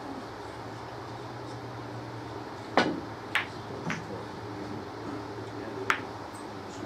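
Snooker shot: a sharp click of the cue tip striking the cue ball about three seconds in, followed by two lighter clicks of balls hitting within the next second and another sharp ball click near six seconds.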